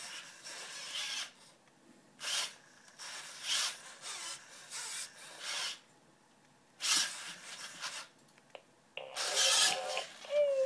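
Genibo QD robot dog playing its built-in sound effects one after another through its small speaker: a string of short, noise-like bursts, each about half a second to a second long with pauses between them, the loudest near the end.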